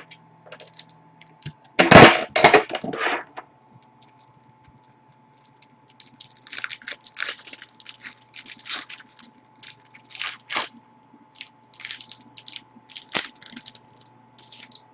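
Trading-card pack wrapper being torn open and crinkled in the hands: a loud burst of crackling about two seconds in, then short bursts of crinkling on and off.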